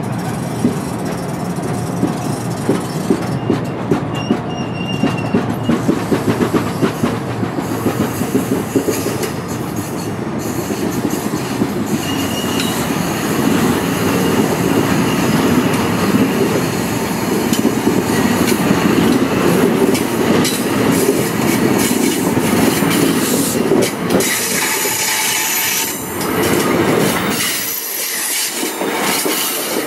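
NJ Transit commuter train rolling past on the rails, its wheels clicking steadily over rail joints in the first several seconds, with brief high wheel squeals and a steady rumble.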